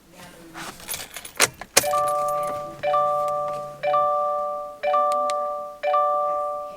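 A jangle and clicks of keys, then the 2018 Subaru WRX STI's warning chime ringing about once a second, each ring fading before the next.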